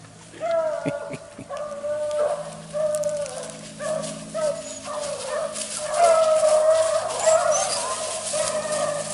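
A pack of beagles baying on a rabbit's track, long drawn-out howls following one after another. Crunching rustle of dry leaves joins in about halfway through.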